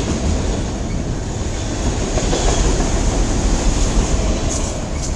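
Freight cars of a CN freight train rolling past close by: a steady, heavy rumble with wheel-on-rail clatter, and two brief high-pitched ticks near the end.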